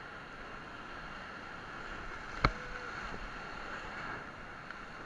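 Whitewater rapid rushing steadily around a raft, with one sharp knock about halfway through.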